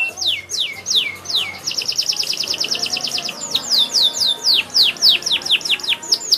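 Domestic canary in full song with varied phrases: a few slow falling whistles, then a fast rapid trill, then a run of quicker falling notes.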